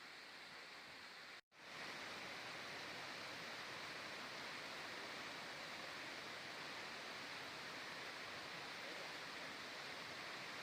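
Steady rushing of the Sofia waterfalls, glacier-fed cascades heard as an even roar of falling water. It cuts out abruptly for an instant about a second and a half in, then resumes slightly louder.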